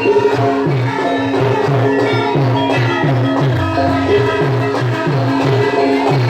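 Music with a steady beat: a repeating bass line under melodic instruments and light percussion.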